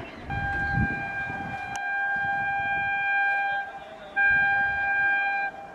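Electric locomotive horn sounding two blasts at one steady pitch: a long blast of about three seconds, then after a brief break a shorter one.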